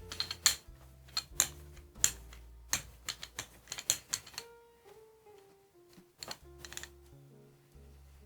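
Background music of held low notes and a bass line, with many sharp, irregular clicks and taps throughout.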